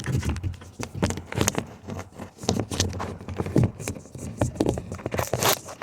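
Irregular knocks, clicks and scraping at close range, several a second, over a low rumble.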